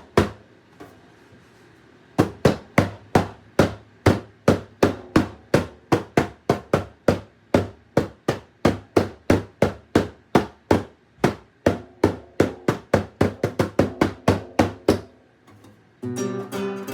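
A drum struck in a steady beat of about three hits a second, with the hits coming faster for a few seconds near the end before stopping.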